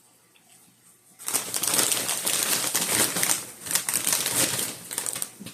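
Snack bag of candy-coated popcorn crinkling and crackling, a dense run of rapid clicks that starts about a second in and lasts about four seconds.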